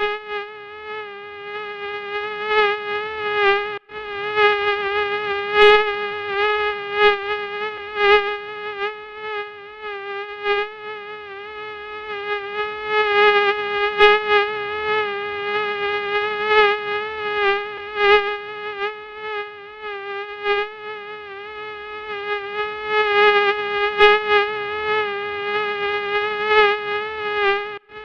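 Mosquito in flight: a steady, high-pitched whining hum from its wingbeat, its loudness repeatedly swelling and fading. It cuts out for a split second about four seconds in.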